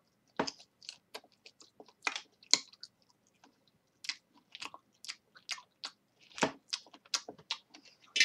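A person chewing crunchy food with the mouth open close to the microphone: irregular crunches about two a second, with a short pause a little before the middle.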